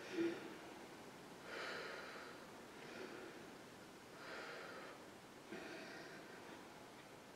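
A woman breathing slowly and audibly, about four faint breaths in and out roughly a second and a half apart, paced to a mindful hand-tracing breathing exercise. There is a brief low blip just after the start.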